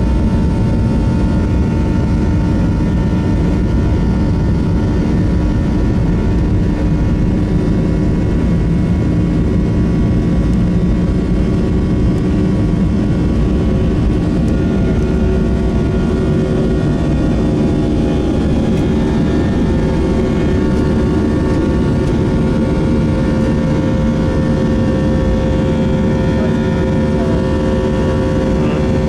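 Boeing 737-700 jet engines running steadily, heard from inside the cabin as a constant rumble with several steady tones.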